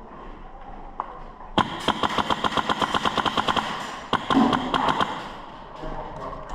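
Airsoft gun firing full-auto: a rapid, even burst of about a dozen shots a second that starts about a second and a half in and lasts about two seconds, followed by a shorter, more ragged burst about four seconds in.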